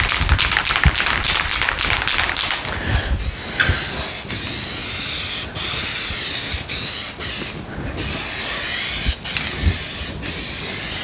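Aerosol spray can of satin black trim paint hissing in repeated bursts, with short breaks between them, as a thin mist is sprayed onto a tire's sidewall.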